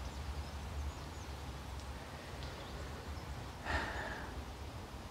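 Quiet outdoor ambience with a steady low rumble. About three and a half seconds in comes one short breath.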